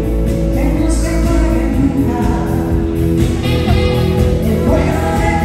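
A woman singing a song in Spanish live with a full band of keyboards, electric guitars and drums, heard over the hall's sound system from the audience.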